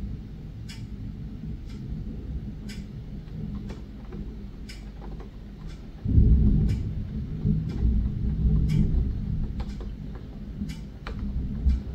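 Thunder during a rain shower: a low rumble breaks out suddenly and loudly about six seconds in and rolls on, swelling and easing, to near the end, over a steady lower rumble. Sharp ticks recur about once a second throughout.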